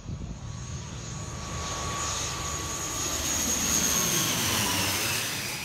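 A twin-turboprop airliner, an ATR 72, passes low overhead on landing approach. Its engine and propeller whine grows louder to a peak about four seconds in, and the pitch falls as it goes over.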